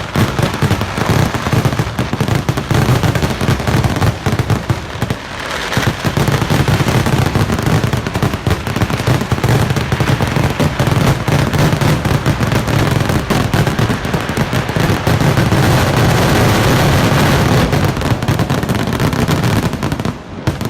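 Kerala temple fireworks (vedikkettu): a dense, continuous barrage of firecracker explosions, bang upon bang with no gaps between them, easing briefly about five seconds in and dying down near the end.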